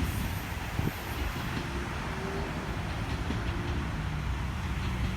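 Train of Thai diesel railcars (THN and NKF types) running on the track, a steady low rumble with a single knock about a second in.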